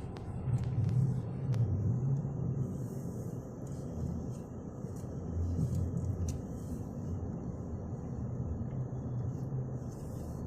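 Car running at low speed, a steady low rumble of engine and road noise.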